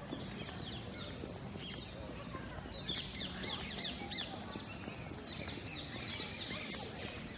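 A flock of small birds chirping in the trees, many short falling chirps that come thickest from about three seconds in, over the steady background of a crowd walking on a paved path.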